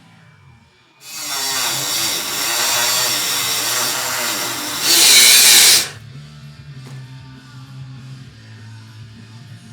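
A power tool working sheet metal, running for about five seconds with its pitch wavering under load and getting louder just before it stops. Background music plays throughout.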